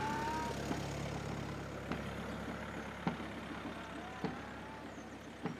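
A large vehicle's engine running as a low rumble that slowly fades, with sharp clicks a little over a second apart.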